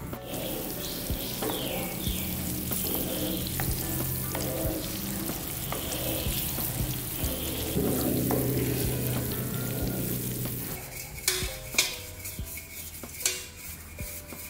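Margarine melting and sizzling in a frying pan as it is stirred. About eleven seconds in the sizzling stops and a few sharp knocks follow as a metal tube cake tin is handled.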